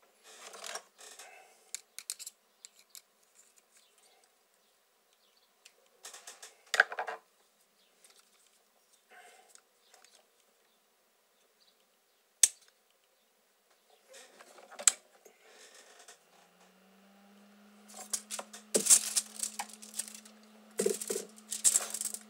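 Handling noises of a soldering iron and aluminium foil on a desk: scattered rustles and a few sharp clicks, then a denser run of crinkling near the end. A steady low hum comes in about two thirds of the way through.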